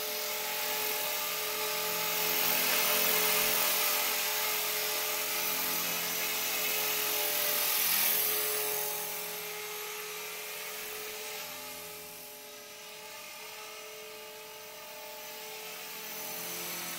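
Blade 450 electric RC helicopter in flight: the steady high whine of its motor and spinning rotor. It grows louder a few seconds in and again about eight seconds in, then fades as the helicopter moves farther off, and swells again near the end.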